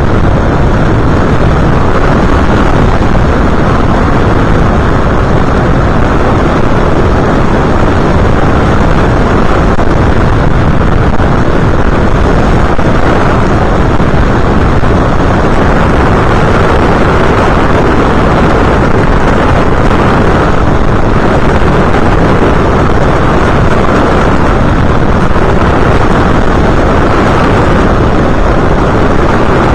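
Loud, steady rush of wind and motor noise picked up by the onboard camera of an FPV aircraft in flight.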